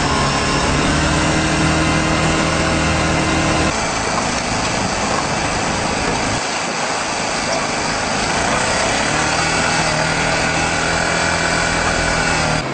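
Steady car engine hum and road noise as picked up by a dash camera in a moving car, with the sound changing abruptly a few seconds in.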